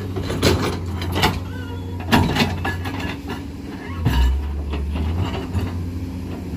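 Komatsu PC210-8 excavator's six-cylinder diesel engine running steadily under hydraulic load, with a deeper surge about four seconds in as the boom and bucket move. Several sharp metal clanks and short squeals from the bucket and its linkage working the soil.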